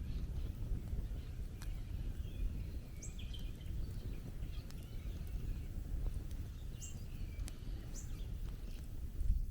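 Outdoor bush ambience: a steady low rumble with short, faint bird chirps scattered through it and a few sharp clicks.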